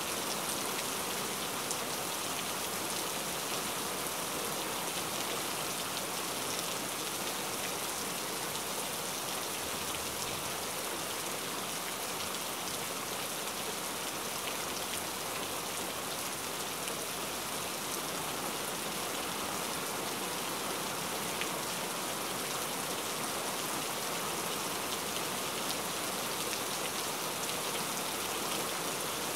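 Steady, continuous rain: an even hiss of many drops, with a few faint separate drop taps now and then.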